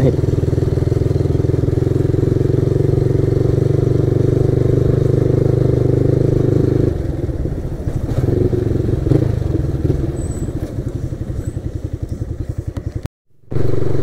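Yamaha R15M's single-cylinder engine running steadily under throttle on the move. About halfway through the note drops and turns uneven as the throttle eases, and the sound cuts out briefly near the end.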